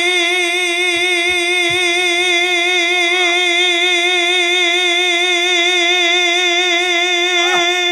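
A man singing one long held note of a Bengali devotional song, unaccompanied, with a steady wavering vibrato; the note breaks off near the end.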